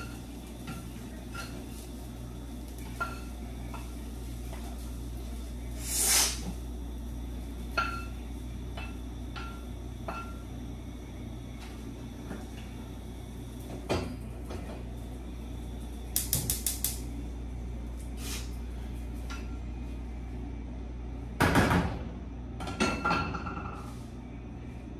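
Kitchen utensil handling: a metal spoon scraping and tapping against a pan and a small bowl as fried rice is packed, with a quick run of taps and a few louder clatters of cookware. A steady low hum runs underneath.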